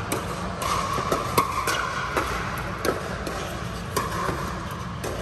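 Pickleball paddles striking the hard plastic ball in a rally: a string of sharp pops at uneven spacing, often about half a second to a second apart, over a steady low background noise.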